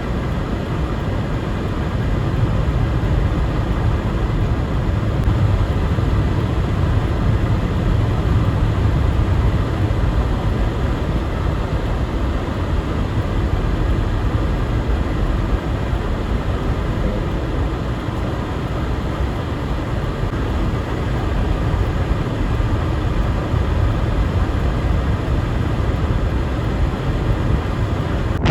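Storm wind buffeting the microphone: a steady, loud low rumble of rushing noise with no breaks.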